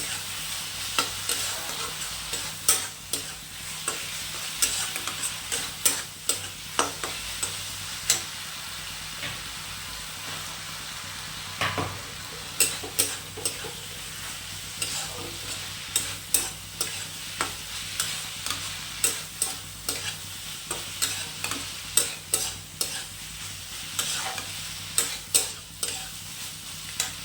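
Soya chunks, vegetables and sauce frying in a pan with a steady sizzle, while a spoon stirs them and clicks against the pan about once a second.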